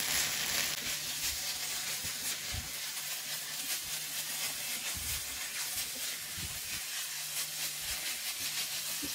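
Minced chicken frying in oil in a hot pan, sizzling steadily as the spices cook in, with a few soft knocks.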